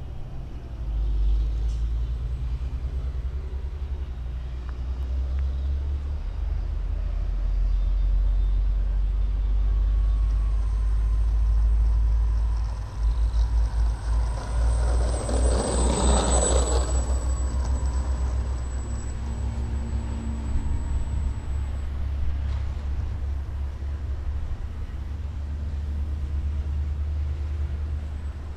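Radio-controlled N250 scale model airplane flying past. The whine of its propeller motors grows louder to a peak about halfway through and then fades, over heavy wind rumble on the microphone.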